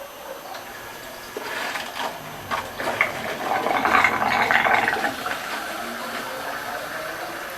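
Water from the washing machine's inlet valve running and splashing into the tub, starting about a second and a half in, swelling and then easing off. The fill is still intermittent with a new valve coil fitted.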